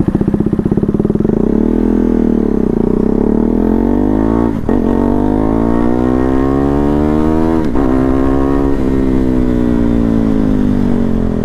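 Motorcycle engine accelerating hard through the gears. Its pitch climbs, drops at two upshifts a little under halfway and about two-thirds of the way in, climbs again, then falls away near the end as the bike slows.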